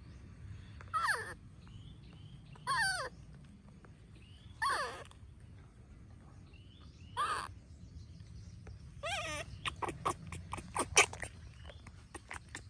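Baby macaque calling: five short, wavering cries about two seconds apart, then a rapid run of sharp clicks and squeaks about ten seconds in.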